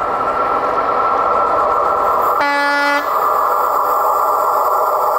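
ZSSK 'Okuliarnik' diesel locomotive approaching with a passenger train, its engine running loud and steady. One short horn blast of about half a second sounds midway through.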